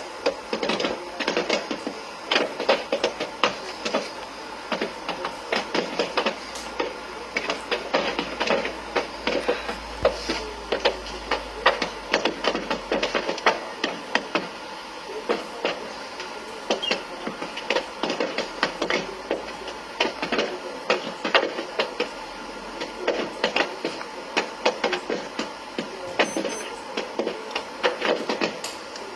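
Burning lorry giving off rapid, irregular pops and small explosions, several a second, like firecrackers going off in the fire.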